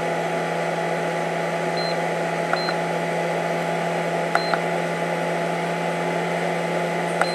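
SkyRC Duo 400W X2 battery charger's cooling fan running with a steady hum, a little loud. About four short high beeps from its keypad as its buttons are pressed to start a LiPo balance charge.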